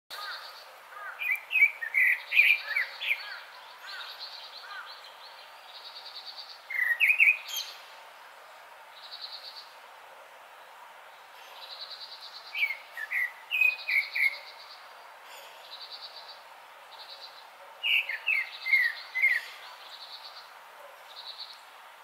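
Grey-backed thrush singing: four phrases of short, clear whistled notes, a few seconds apart. Fainter short buzzy trills repeat in the background between the phrases.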